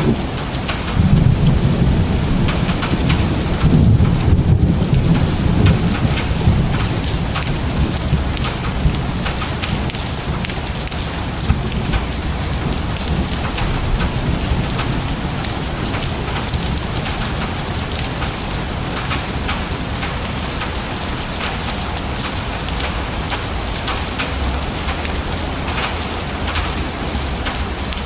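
Thunderstorm: thunder rumbles for the first six seconds or so, then dies down, over steady heavy rain.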